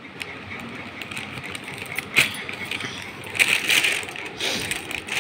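Paper booklet pages being turned and a plastic bag crinkling as it is handled, with a sharp click about two seconds in and a burst of denser rustling a little later.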